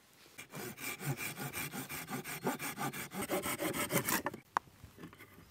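Silky folding pull saw cutting through a thin wooden pole, in quick, even rasping strokes, several a second, that stop about four seconds in as the cut goes through.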